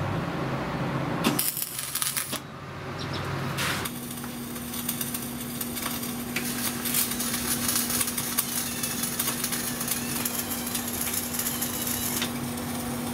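Electric arc welding on a steel mast tube: a dense, steady crackle with a constant hum, starting about four seconds in. Before it, a few sharp metal clicks and knocks.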